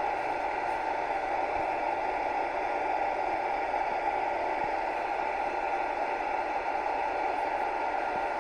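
Hair dryer running steadily: a constant rushing blow of air with a faint steady whine in it.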